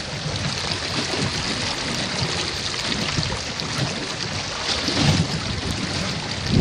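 Water rushing and splashing along the hull of a small wooden OZ Racer sailing dinghy under way in choppy water, with wind buffeting the microphone, strongest about five seconds in.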